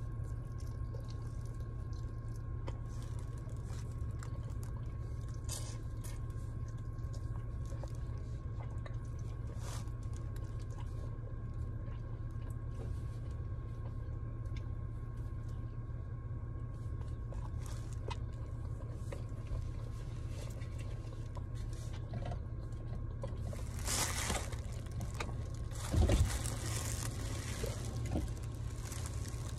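A person eating chicken wings: quiet chewing, smacking and finger-licking over a steady low hum inside a car. Near the end there are a couple of louder, brief noises.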